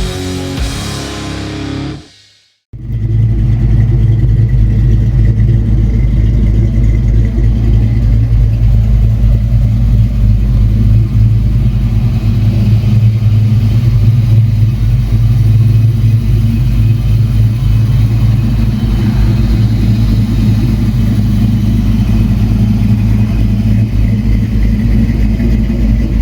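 Rock music cuts off about two seconds in; after a brief gap, a Fox-body Ford Mustang's engine runs steadily and loudly with a deep, even low-pitched note.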